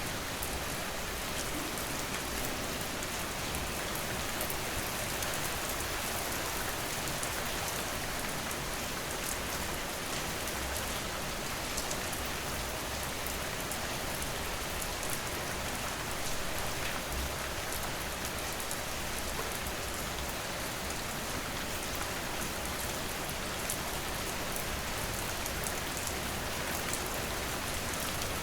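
Steady rain falling: an even wash of noise with many small drop ticks scattered through it.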